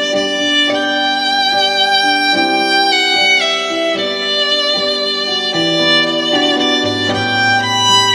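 Background music: a violin playing a slow melody of held notes over a low accompaniment.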